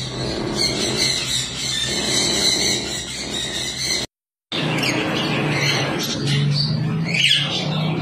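Parrots calling with squawks and chirps, in two stretches split by a brief dead silence about four seconds in. The later calls are quick rising and falling cries.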